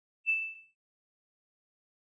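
A single electronic ding sound effect: one clear high tone that starts about a quarter second in and fades within half a second. It marks a tap on a like or follow button in an animated social-media graphic.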